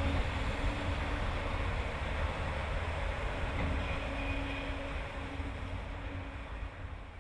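Sentinel steam locomotive running with its train of coaches: a steady low rumble and hiss that gradually fades away near the end.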